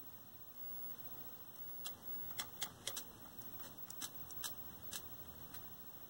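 Sharp, irregular snapping from the high-voltage section of a 1973 Toshiba C321 hybrid tube/transistor colour TV, starting about two seconds in at roughly three snaps a second. The owner takes it for the high voltage regulating, a high-voltage regulation fault.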